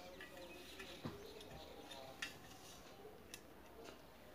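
A few faint clicks and taps about a second apart from a metal TV wall-mount bracket plate being handled against a wall, over near silence.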